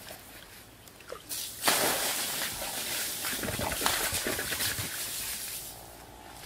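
Water poured from clay pots splashing onto the floor of a shallow, nearly empty pool. The splashing starts about a second in, holds for several seconds, and fades near the end.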